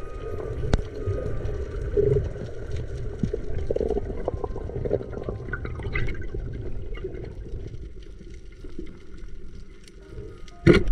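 Water churning and moving around the microphone, with small clicks throughout and one sharp knock near the end.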